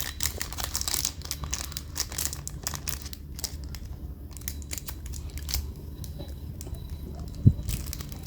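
Vintage brass Zippo lighter being handled and lit: a run of scratchy clicks and rasps over the first few seconds, then quieter handling and one sharp metal clack about seven and a half seconds in.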